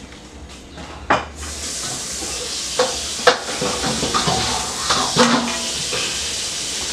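A steady hiss sets in about a second and a half in, with a few sharp clinks and knocks of dishes.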